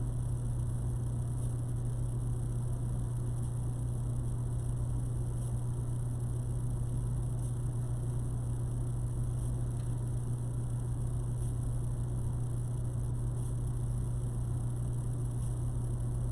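Steady low electrical hum under a constant hiss, unchanging throughout; no other events.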